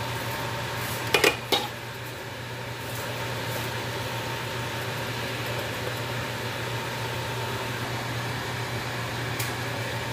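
A few sharp clinks on a cooking wok, a glass lid and a spatula against the aluminium, about a second in. Then food cooks under the covered wok over a steady low hum and hiss.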